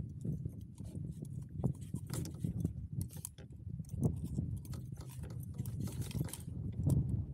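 Small waves slapping and knocking unevenly against a plastic kayak hull, over a low wind rumble on the microphone.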